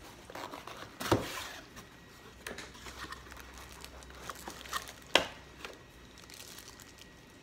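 A cardboard RouterBOARD box is being opened by hand: flaps folding back, and the plastic-bagged device inside being handled and lifted out with plastic crinkling. Several sharp knocks and taps are heard, one about a second in and the loudest about five seconds in.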